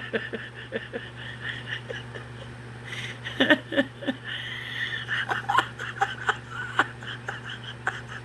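A man laughing and chuckling in short bursts, amused after a burp, over a steady low hum.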